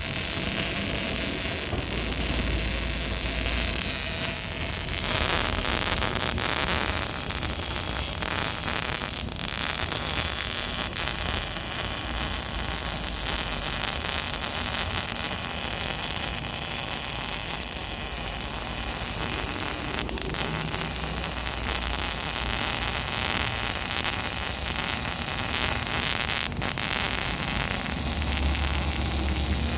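Hitachi MIG 200 welder's arc running steadily: a continuous crackling hiss of MIG welding.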